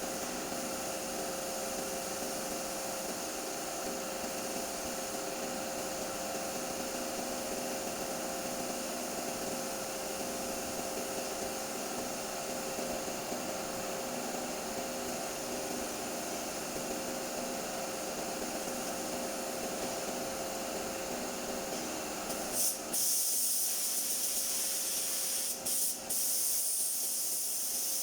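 A steady machine hum, then near the end the high hiss of a compressed-air paint spray gun starting up and spraying, broken twice by brief releases of the trigger.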